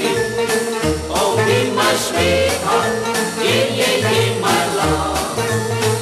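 Instrumental passage of a 1961 pop single with orchestral backing: a swing-style band playing bass notes and cymbal strokes on a steady beat, with no singing.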